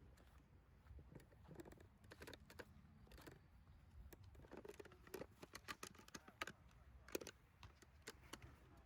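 Faint, distant voices with scattered sharp clicks over a low rumble.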